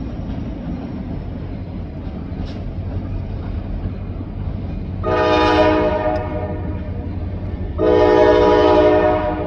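Diesel freight locomotive's multi-chime air horn sounding two long blasts, about five and eight seconds in, over a steady low rumble.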